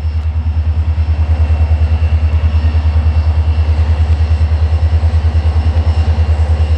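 Diesel locomotive of an approaching freight train: a loud, low, pulsing engine rumble of about nine beats a second. It swells over the first second, then holds steady, with a faint steady whine above it.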